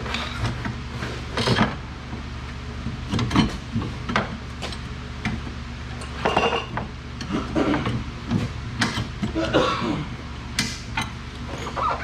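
Metal hand tools clinking and clanking at irregular intervals against car suspension parts, with a few sharper knocks, over a steady low hum.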